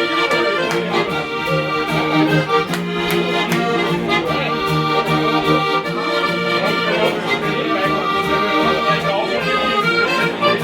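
Live traditional music played on an accordion, a steady rhythmic tune with a bass accompaniment.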